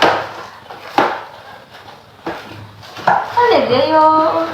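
A few sharp knocks and taps from handling a gift box during unboxing, about one a second. Near the end comes a high, wavering voice sound that is not words.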